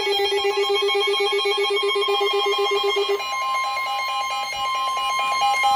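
NOAA Weather Radio emergency alert tones announcing a severe thunderstorm warning. A rapidly pulsing, ringing tone cuts off about three seconds in. It is overlapped from about two seconds in by the steady 1050 Hz warning alarm tone.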